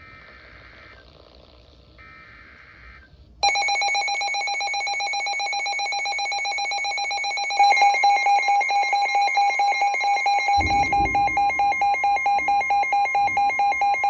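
NOAA Weather Radio alert on Midland weather radios: two short screeching SAME data bursts, then about three and a half seconds in the radios' rapid pulsing alarm beeps start. About four seconds later a louder pulsing alarm joins, with a steady warning tone under it, signalling a severe thunderstorm warning.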